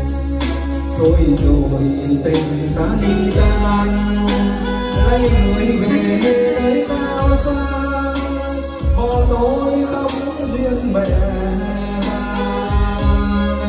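Vietnamese karaoke song played loud through JBL 4012 loudspeakers: a singing voice over a band backing with heavy bass and a steady beat.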